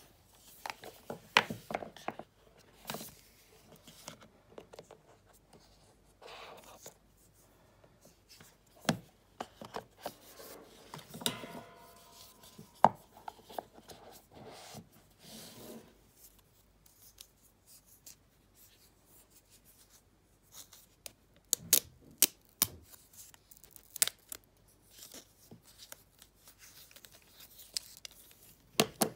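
Hands unboxing Apple AirPods (3rd generation): fingers rubbing, tapping and sliding on the smooth cardboard box, and near the end peeling the wrap off the charging case, with scattered sharp clicks and scrapes.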